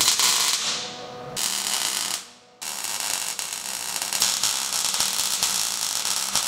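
MIG welding arc crackling as a steel plate is welded onto a loader bucket: a short run, a brief stop a little over two seconds in, then a steady bead of about four seconds.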